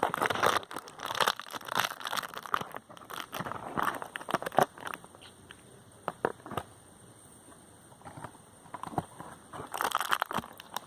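Plastic candy wrapper crinkling and crackling in the hands, with dense sharp crackles for the first few seconds, a quieter stretch, and more crackling near the end.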